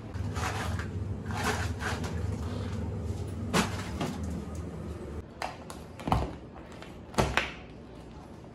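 A walk-in cold room door being opened and shut, with a few knocks and two heavy thuds in the second half, over a steady low hum that fades out about five seconds in.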